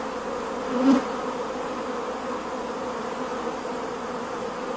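A mass of worker honeybees buzzing in a steady, dense hum as they gather onto a beekeeper, drawn by the scent of a caged queen, to form a bee beard. There is a short louder swell about a second in.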